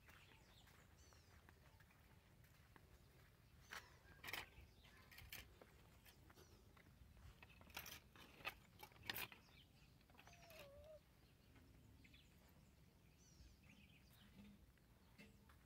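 Near silence with faint bird chirps here and there and a few short knocks and scuffs, the loudest between about four and nine seconds in.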